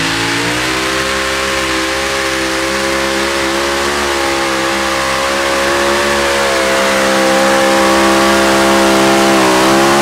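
Heavy modified pulling tractor's engine at full throttle: it revs up over the first second, then holds a steady high pitch with slight wavering.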